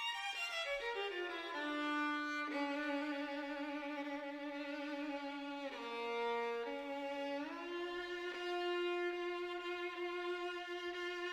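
Background music: a single bowed violin line, a quick descending run of notes followed by long held notes that waver slightly, dipping lower midway and then settling on a higher sustained note.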